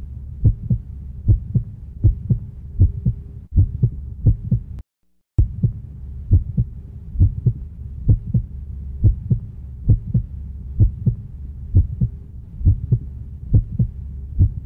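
Heartbeat sound effect: dull low thuds in pairs at a steady beat over a low, steady hum, cutting out briefly about five seconds in.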